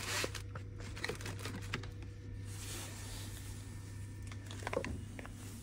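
Small clicks and rustles of knives and wrapping paper being handled in a cardboard box, over a steady low hum.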